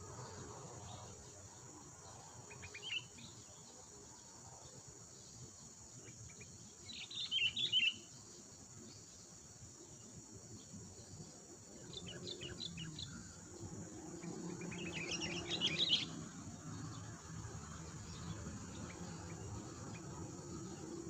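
Wild songbird singing in four short bursts of quick chirps, the loudest about seven seconds in, over a steady high drone of crickets.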